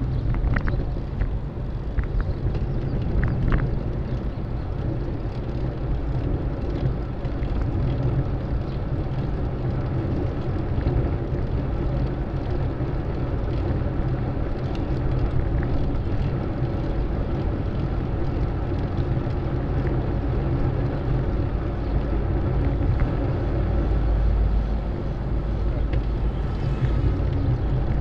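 Wind rumbling on the microphone and road noise from a bicycle ride through city traffic, with a few sharp clicks in the first few seconds.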